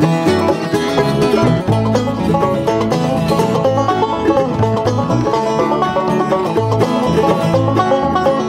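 Live bluegrass band of banjo, mandolin, acoustic guitar and upright bass playing an instrumental break between sung verses, the bass plucking a steady beat under quick picked notes.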